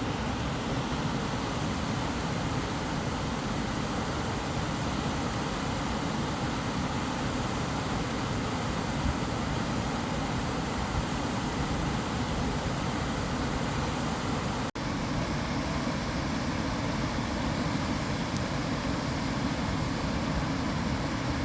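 Steady white noise for sleep: an even, unchanging hiss, heavier in the low end, with a momentary dropout about fifteen seconds in.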